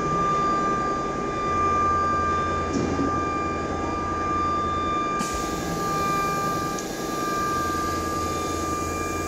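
ATC CNC router spindle running with a steady high-pitched whine over a steady low hum.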